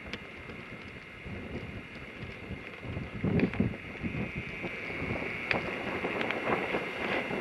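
Wind buffeting the camera microphone in a low, uneven rumble, with a faint steady high tone under it. A few soft thumps come about three seconds in, with a few light clicks later on.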